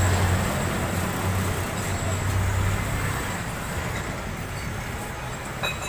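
A motor vehicle engine running with a steady low hum, which weakens after about three seconds.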